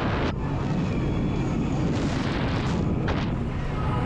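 Heavy wind rumble on the microphone over a boat running across the water, with two short hissing surges, one at the start and one about three seconds in.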